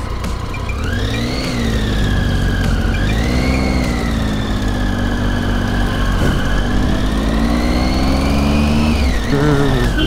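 Triumph Tiger 800's three-cylinder engine pulling in first gear up a steep hairpin climb. The revs rise about a second in, dip and rise again around three seconds, hold steady, and ease off near the end. A whine rises and falls with the revs.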